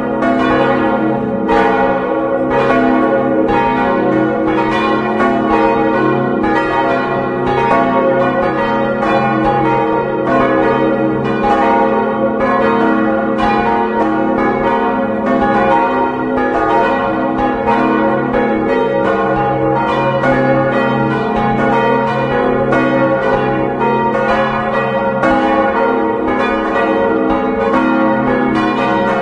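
Church bells swung full-circle, several ringing together from a four-bell peal tuned to a Westminster chord, the largest a bronze bell of about 1.9 tonnes in C♯. The strokes overlap without pause, each one ringing on under the next.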